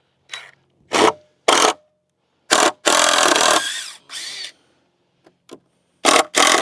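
Power drill running in a series of short bursts, one longer run about three seconds in, driving fasteners into 2x4 framing lumber.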